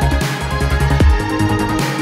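Electronic dance-style background music with a fast pulsing beat, a deep falling bass hit about a second in, and a sweeping swoosh near the end.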